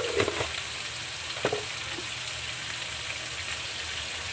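Shrimp frying in margarine and garlic in a hot wok: a steady sizzling hiss, with a few faint clicks near the start and again about a second and a half in.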